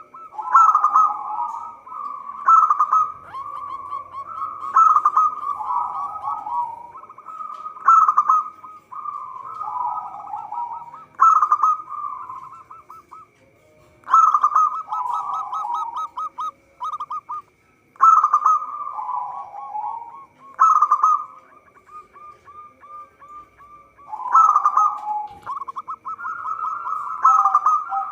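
Zebra dove (perkutut) cooing repeatedly: about ten phrases every two to three seconds, each opening with a sharp note and running into a quick stuttering coo.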